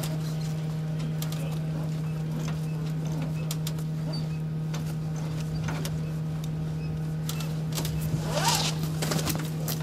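Fire hose and turnout gear rustling and knocking as a firefighter pulls a crosslaid hose line from a fire engine's hose bed and shoulders it, over a steady low hum. A louder rustle comes about eight seconds in.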